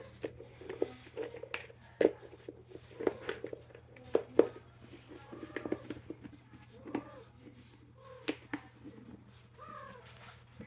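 Scattered clicks and taps of hard plastic as a plastic toy dinosaur egg container is handled and its halves are worked apart.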